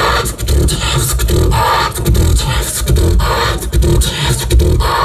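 Human beatboxing amplified through a club PA: a steady rhythm of deep kick-drum sounds with snare-like hits.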